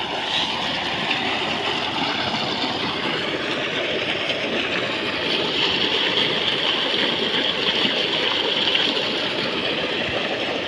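Tubewell water gushing steadily from a 4-inch outlet pipe at full pressure into a brick tank, a constant rushing splash of falling and churning water.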